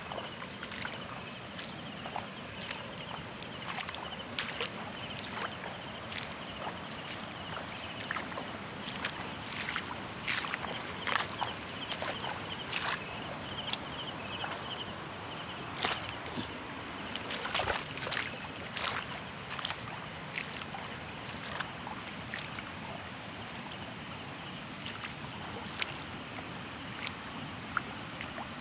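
Night ambience of a steady high insect trill over a constant rush of water, broken by irregular sloshing steps and rustles through wet ground and grass. The steps come thickest in the middle stretch.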